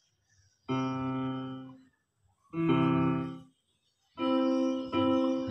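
Piano sound from a phone app, played from a Worlde Panda Mini MIDI controller's keys through a speaker: three held notes, each fading out and each sounding higher than the last, as the controller's pitch-raising control shifts the notes up.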